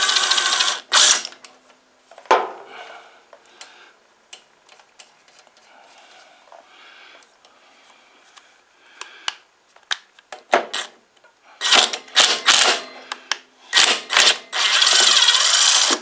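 Cordless electric ratchet running in short bursts, with a longer run near the end, spinning nuts off a lawn mower carburetor's mounting studs. In between come light metal clicks of the wrench and loose parts.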